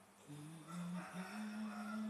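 A woman humming a tune with her mouth closed, starting about a quarter second in and holding long, steady notes that step up and down in pitch.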